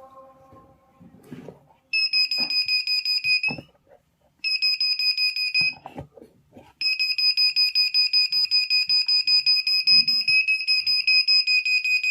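A homemade security alarm circuit's buzzer sounding a shrill, rapidly pulsing beep. It goes off twice in short bursts of about a second and a half each, then sounds without stopping. A few soft knocks come before and between the bursts.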